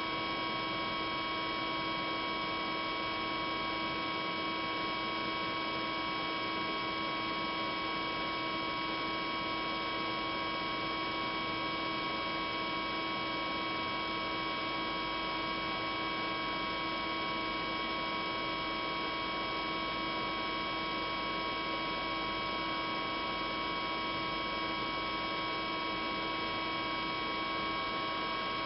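Steady machine hum: a constant bed of noise carrying several fixed tones, low and high, unchanging in level.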